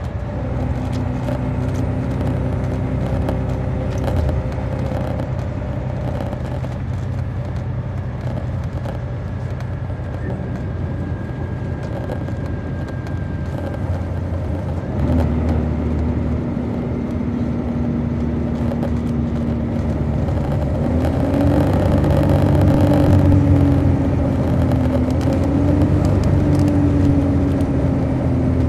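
MCI D4500 coach's Detroit Diesel Series 60 engine running steadily, then picking up about halfway through. Its pitch climbs, dips, climbs again and eases off near the end as the bus pulls away.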